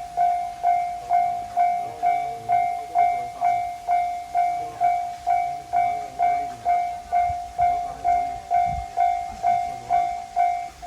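Japanese level-crossing warning bell ringing steadily, an even clanging tone at a little over two strokes a second, warning of an approaching train.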